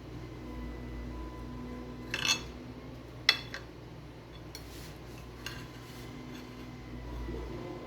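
Cutlery and dishes clinking a few times in short separate knocks, over a faint steady hum.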